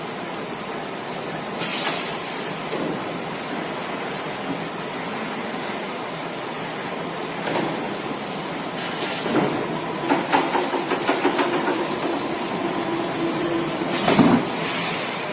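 Automatic roller conveyor and woodworking machinery running with a steady mechanical noise. Short sharp hisses of compressed air come about two, nine and fourteen seconds in, and there is a spell of rattling clicks between about ten and thirteen seconds.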